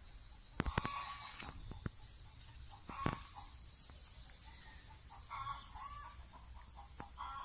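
Quiet garden ambience: a few light taps and rustles, loudest in the first three seconds, over a steady high hiss, with faint short bird calls in the background.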